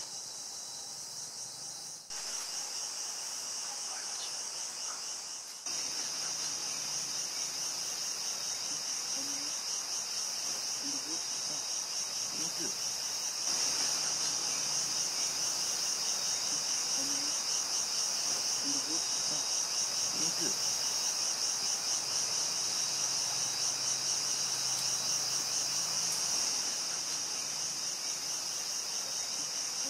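A chorus of tropical rainforest insects keeps up a steady, high-pitched, pulsing drone, growing louder in a few steps.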